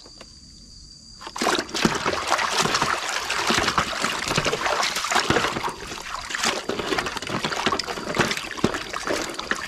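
Muddy water splashing and sloshing in a plastic basin as hands scrub a plastic toy truck in it, a dense run of irregular splashes that starts about a second in.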